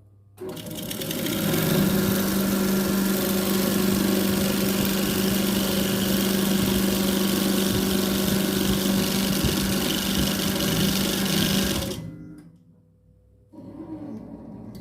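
Electric coil-winding machine starting up about half a second in, picking up speed over a second, then running steadily with a loud hum as it winds fine 36 SWG copper wire into a ceiling-fan stator coil in the forward direction. It stops about twelve seconds in, and a shorter, quieter sound follows near the end.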